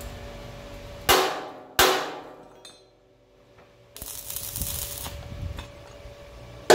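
Small hammer striking the steel of a trailer fender reinforcement: two sharp metallic blows about a second in, each ringing briefly, and a third at the very end. In between comes a rough hiss about a second and a half long.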